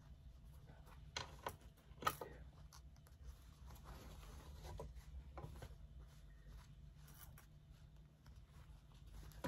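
Faint rustling and soft ticks of satin fabric and straight pins being handled while the cap is pinned, with the most distinct rustle about two seconds in, over a steady low hum.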